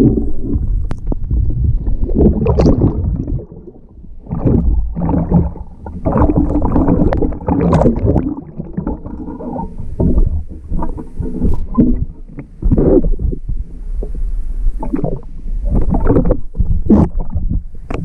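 Lake water sloshing and gurgling in irregular surges as a perforated metal-detecting sand scoop is dug into the lake bottom, lifted and shaken to sift out a find. The water is churned right at the scoop-mounted microphone.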